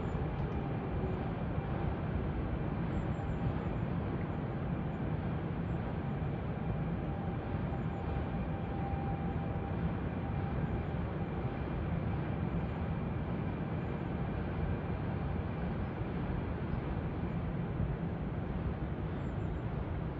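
Steady distant rumble of a Trenord passenger train rolling across an iron truss bridge deck, with a faint whine in the middle.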